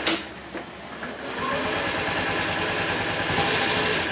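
Honda Ruckus scooter's 49cc four-stroke single being started: a sharp click at the start, then from about a second in a steady mechanical whir of the engine turning.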